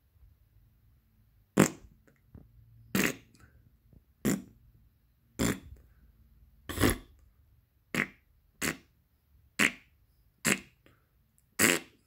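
A series of about ten short fart sounds, roughly one every second, with quiet gaps between them.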